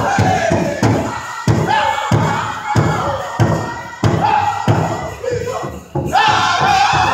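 Powwow drum group playing a chicken dance contest song: a big drum struck in a fast steady beat, about four strikes a second, under high-pitched group singing. The sound dips briefly a few times, and the singing comes back in loud near the end.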